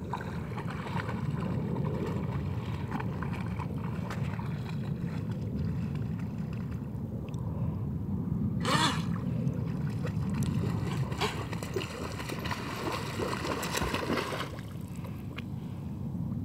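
Water sloshing and splashing around a Doberman puppy wading in shallow lake water, over a steady low rumble. A brief, louder splash comes about halfway through.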